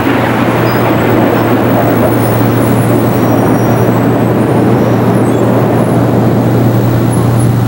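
Jet aircraft engines overhead, a loud steady roar with a low hum underneath.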